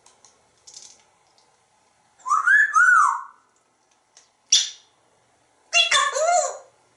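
African grey parrot whistling two rising-and-falling notes about two seconds in, then a short sharp squawk, and near the end a word-like call, "peekaboo", in its mimicked human voice.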